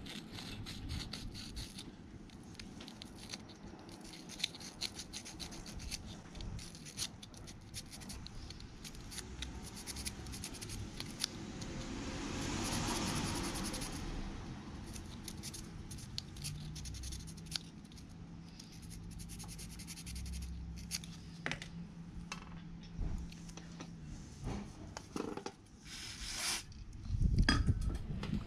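Small metal brake-light switch part rubbed by hand on sandpaper in short irregular strokes, a dry scratching, polishing its electrical contacts clean. A faint low hum runs for several seconds past the middle, and louder handling noise comes near the end.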